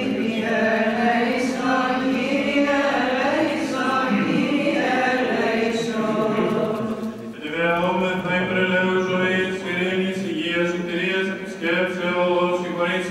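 Byzantine chant sung by several voices at a Greek Orthodox church service: long melismatic held notes over a steady low drone. A brief pause about seven seconds in, then a new phrase begins.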